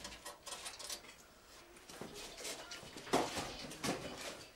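Faint scattered clicks and knocks, with a few louder short knocks about three seconds in.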